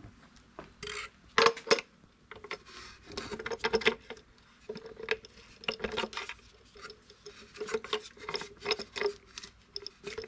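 Small metal parts and tools being handled and fitted on a plastic bottle: irregular clicks, taps and short scrapes of metal against plastic. Two sharp knocks stand out about a second and a half in.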